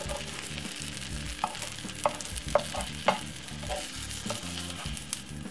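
Cheese omelette sizzling in a non-stick frying pan, with a plastic slotted spatula clicking and scraping against the pan a few times as the omelette is folded over.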